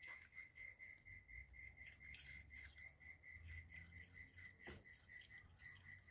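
Near silence with a faint, high chirp repeating evenly about five times a second, and a few soft clicks.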